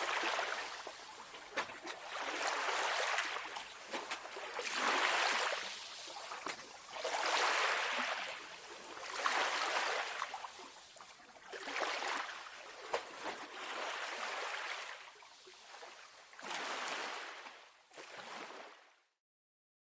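Calm sea waves washing in, swelling and falling away every two seconds or so, with a few small sharp ticks among them. The sound stops near the end.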